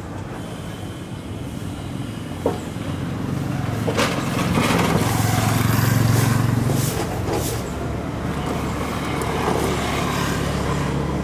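Street traffic: a motor vehicle's engine hum swells as it passes, loudest about halfway through, over a steady background of city noise, with two sharp knocks before the peak.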